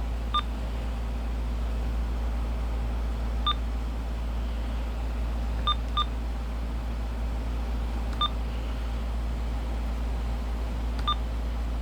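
Uniden BC370CRS scanner radio's key beeps as its buttons are pressed to set the clock: about seven short, identical beeps at irregular intervals, a pair close together near the start and another pair about six seconds in. A steady low hum runs underneath.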